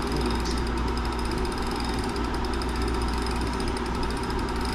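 Wahoo KICKR direct-drive smart trainer running under a rider pedaling steadily, its flywheel and chain giving a continuous mechanical whir and hum.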